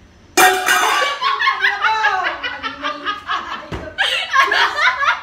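A sudden loud startled cry about half a second in, then women laughing hard in quick bursts, with a short thump just before the end.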